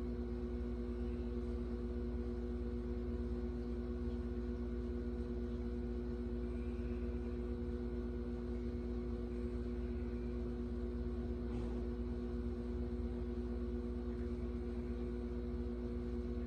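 Steady electrical hum, several even tones over a low rumble, with a faint tap about two-thirds of the way through.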